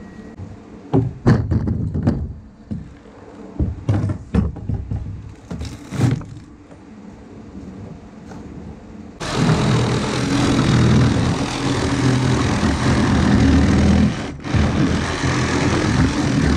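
Hammer and chisel knocking and prying rotten plywood core out of a fibreglass boat transom, with irregular thuds and wood cracking. About nine seconds in, a cordless reciprocating saw starts cutting into the rotten wood with a steady rough buzz, pausing briefly once before it stops at the end.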